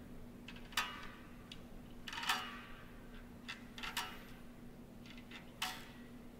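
Small metal objects clicking and clinking, about half a dozen sharp ticks with a brief metallic ring, spaced irregularly, over a steady low hum.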